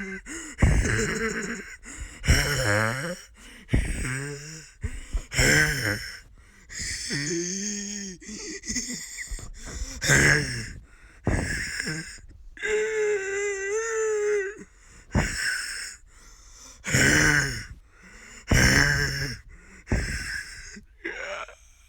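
A person deliberately wheezing in a run of squeaky, gasping breaths, one every second or two, with one long high squeal held about halfway through.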